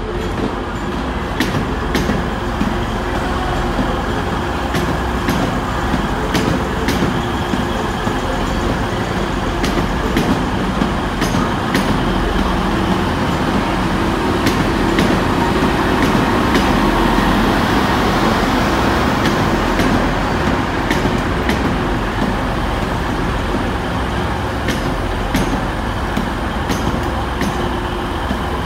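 Two coupled TransPennine Express Class 185 diesel multiple units pulling out past, their diesel engines running under power with a steady rumble that swells about halfway through. Sharp clicks come at irregular intervals as the wheels pass over rail joints.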